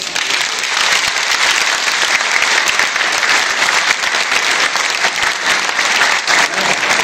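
Audience applause: loud, dense, steady clapping from a full hall.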